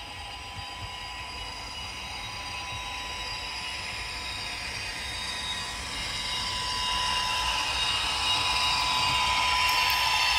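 H0 model train running on the layout and coming closer, growing steadily louder, with a steady high whine throughout.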